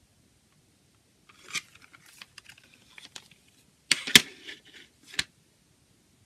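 Plastic CD jewel case being handled and opened: scattered light clicks and rustle, then a loud cluster of plastic clacks about four seconds in and a single click about a second later.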